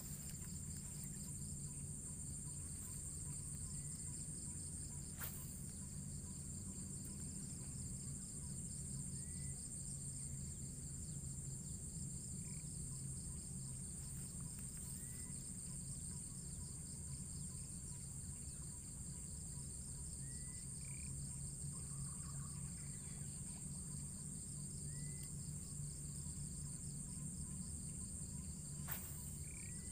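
Steady chorus of insects, a shrill high drone over a faster pulsing band, with a steady low hum underneath. A few faint short chirps come through, and there are two sharp clicks, one about five seconds in and one near the end.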